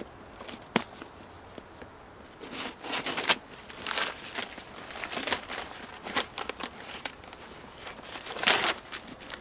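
Packing tape and cardboard being slit and torn open on a long cardboard shipping box, in short irregular scrapes and rips. There is a sharp click under a second in, and the loudest rip comes near the end.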